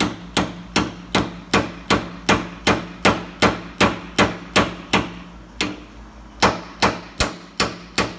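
Hammer tapping a new U-joint bearing cap down into the drive-shaft yoke, steady blows about two and a half a second with a short pause about five seconds in.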